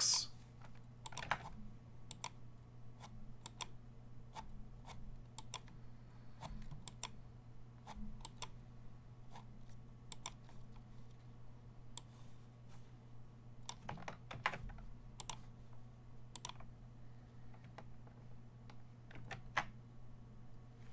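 Scattered clicks of a computer mouse and keyboard, irregular and fairly faint, with a few quick clusters, over a steady low hum.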